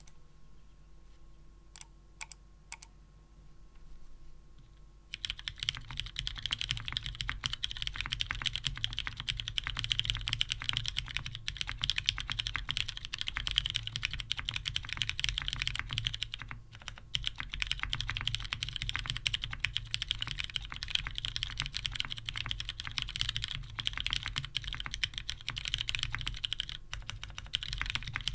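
Fast, continuous typing on an NRD Oku custom mechanical keyboard: lubed Retooled Brown tactile switches on a polycarbonate plate, with DCS keycaps. A few single key presses come first, and the steady typing starts about five seconds in, with short pauses near the middle and near the end.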